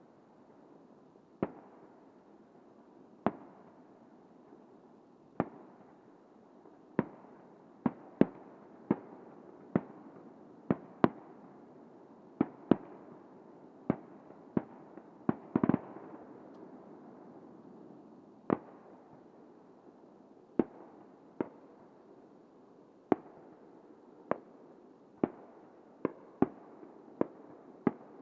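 Aerial firework shells bursting far off: a run of sharp bangs at uneven intervals, about one a second, with a rolling rumble of echoes between them. A quick cluster of bangs comes about halfway through, followed by a gap of a couple of seconds before the bangs resume.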